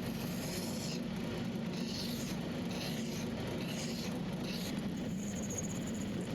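A small metal lathe running with a steady motor hum while the tool cuts a taper on a steel part. The scraping of the cut comes and goes every second or so, and a thin high whine rises for about a second near the end.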